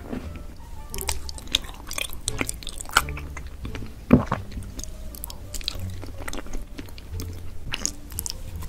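Close-miked eating: wet chewing, with many small mouth clicks and crackles and one louder bite about four seconds in.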